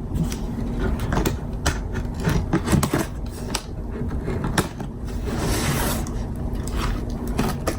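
Cardboard camera box and packing being handled and opened: scattered scrapes, taps and clicks, with a longer rustle about five and a half seconds in.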